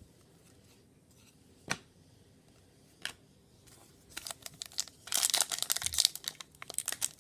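Two soft clicks, then from about four seconds in, a trading-card pack wrapper being torn open and crinkled.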